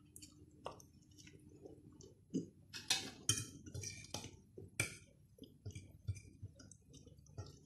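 Faint eating sounds: a metal fork clicking and scraping on a ceramic plate while food is chewed, as a scatter of short sharp ticks, with a few louder clinks about three to five seconds in.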